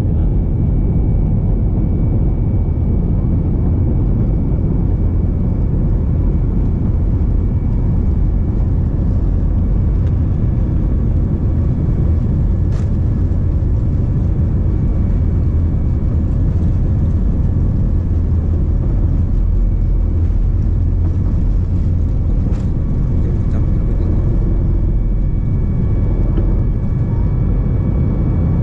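Steady roar of an airliner's engines and rushing air heard inside the passenger cabin, with a few faint steady whining tones above it and two faint clicks.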